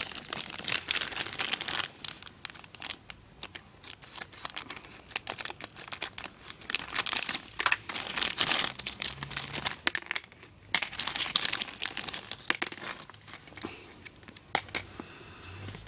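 Clear plastic bag crinkling and crackling in irregular bursts as it is handled and pulled at by hand.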